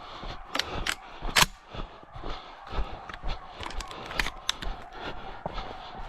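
Footsteps of a person running on a gravelly dirt track, thudding about twice a second, with several sharp cracks of stones and brush underfoot; the loudest comes about a second and a half in.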